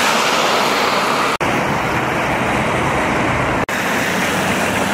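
City road traffic: a steady wash of car tyre and engine noise. It breaks off abruptly twice as the shots are cut together.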